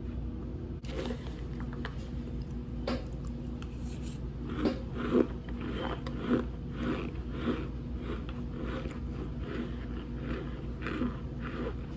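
Close-up chewing of cold cornstarch chunks: a few separate squeaky crunches, then steady chewing at about two crunches a second over a faint steady hum.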